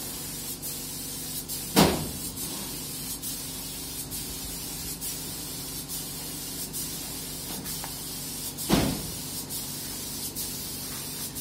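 Compressed-air paint spray gun hissing steadily as paint is sprayed onto corrugated steel sheet, over a steady low hum. Two loud sharp knocks ring out, about two seconds in and again about seven seconds later.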